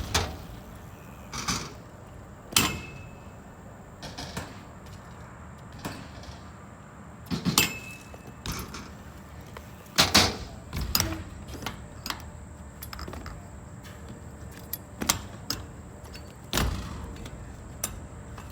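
Scattered clanks and knocks from a BMX bike, with a handful of sharper, louder hits among them.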